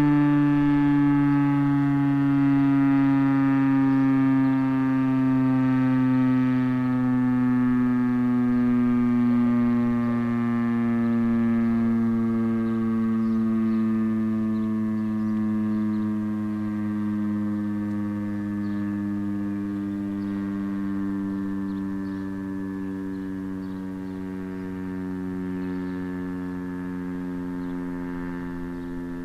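Federal Signal STH-10 outdoor warning siren winding down after a short alert, its pitch falling slowly and steadily as it grows quieter. The sound swells and fades every few seconds.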